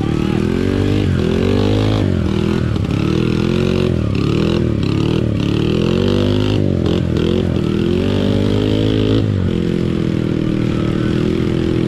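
Dirt bike engine revving hard and repeatedly, its pitch climbing and dropping again and again as it churns through deep mud. It settles to a steadier note for a moment near the end.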